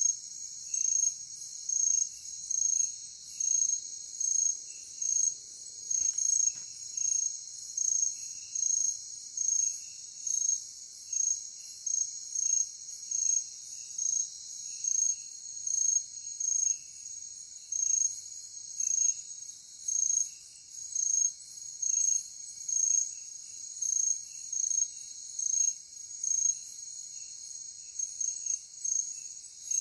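Night insects in a forest, likely crickets: a steady high-pitched drone with one loud chirp repeating about once a second.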